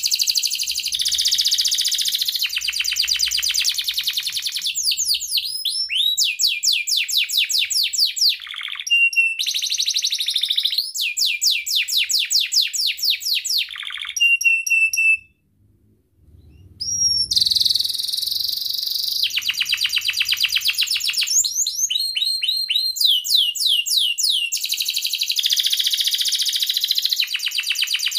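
Domestic canary singing a long, loud song of rapid rolling trills and chirps, the notes repeated many times a second in runs of a second or two. The song breaks off for about a second and a half a little past the halfway point, then carries on.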